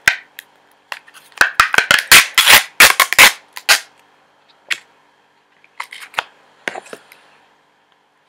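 Plastic-coated lid of an ice cream cup being peeled off and crinkled close to the microphone: a dense run of loud crackles from about one to four seconds in, then a few scattered softer clicks and rustles.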